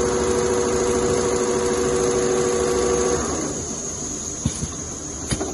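Two-head CNC leather sewing machine running, a steady mechanical whine and clatter. About three seconds in the whine stops and the noise drops to a quieter run, with a few sharp clicks near the end.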